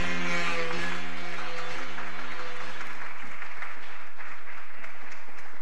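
Audience applauding, a dense steady clatter of many hands, while recorded music plays out and fades away about halfway through.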